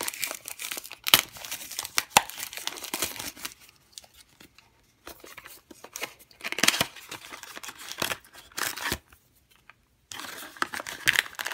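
A small cardboard blind box being torn open by hand, with crinkling of the plastic packaging inside: irregular bursts of tearing and crinkling with short pauses.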